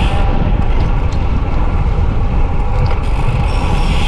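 Loud, steady wind rushing over the microphone of a road bike descending at speed, a deep rumbling rush with no let-up.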